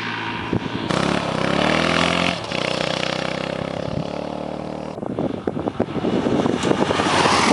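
Single-cylinder dual-sport motorcycle engines running in a string of short cuts: the pitch rises as one revs up about a second in and then holds steady. From about five seconds in, a closer, rougher, pulsing engine note follows as the bike is ridden.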